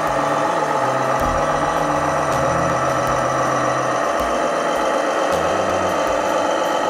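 Radio-controlled Scania fire truck model driving, with a steady diesel-truck engine sound running throughout.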